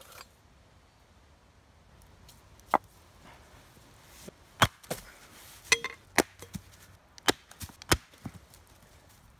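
Machete chopping into a small log round on a tree stump, splitting it into fuel sticks for a wood gasifier stove: about eight sharp wooden chops at irregular spacing, starting about two and a half seconds in.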